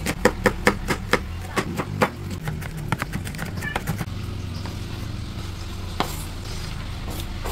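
Chef's knife dicing red onion on a bamboo cutting board: quick, even chopping knocks, about five a second, for the first three seconds or so, then the chopping stops and a low steady hum is left underneath.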